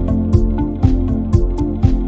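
Background music with a steady beat of about two strokes a second over sustained instrumental notes.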